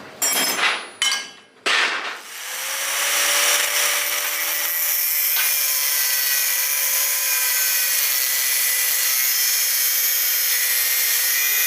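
A few short knocks, then a handheld power tool starts about two seconds in, comes up to speed and runs steadily with a high hiss.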